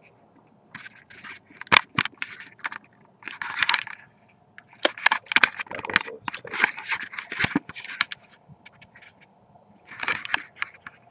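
Handling noise from a handheld camera being moved about and fumbled in the hand: irregular scraping and rustling rubs with several sharp clicks.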